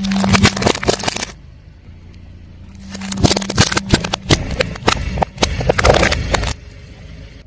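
Car tyre rolling over and crushing something crunchy: a dense crackling of breaking pieces in two bursts, a short one at the start and a longer one from about three seconds in to six and a half, over the car's low engine hum.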